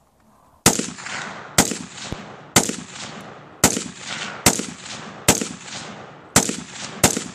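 Semi-automatic rifle firing a string of single shots, about one a second, each with a trailing echo, plus one fainter crack about two seconds in.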